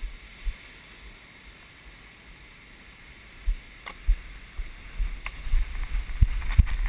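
Steady wash of shallow surf with wind rumbling on the microphone. Low thumps and a few sharp knocks get busier over the last three seconds.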